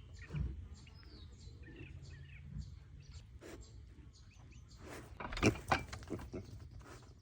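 Farmyard birds, chickens among them, making scattered short chirps and clucks, with a few sharp knocks about five and a half seconds in.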